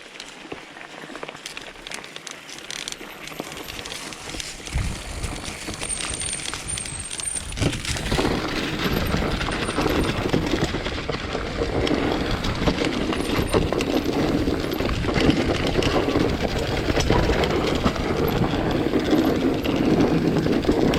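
Bicycle being ridden: tyre rumble on the ground with wind noise, getting much louder from about eight seconds in, with scattered clicks and rattles.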